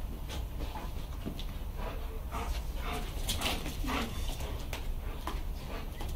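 Two pit bull-cross dogs whining and giving short yelps in excitement while at play.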